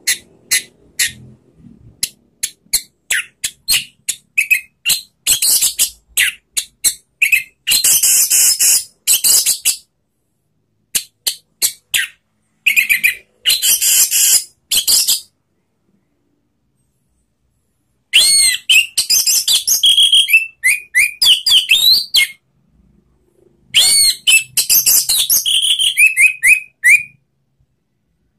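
Orange-headed thrush (anis merah) singing: a string of sharp single notes about two a second, then loud, varied phrases of a few seconds each with quick whistled glides, broken by short pauses.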